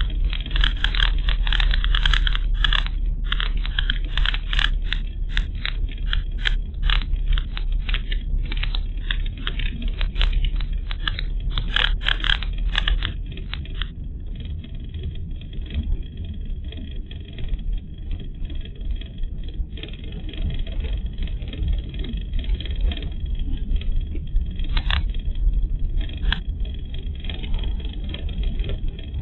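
Car driving, heard from a dashcam microphone inside the cabin: a steady low road and engine rumble, with rapid sharp clicks and rattles over roughly the first half that thin out to a few after that.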